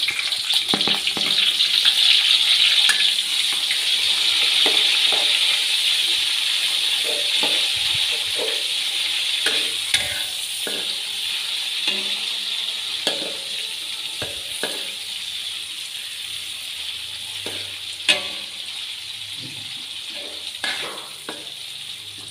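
Sliced onions sizzling in hot oil in a large metal wok, loudest in the first few seconds and slowly dying down as they fry. A metal spatula scrapes and clicks against the wok as they are stirred, with one sharper knock late on.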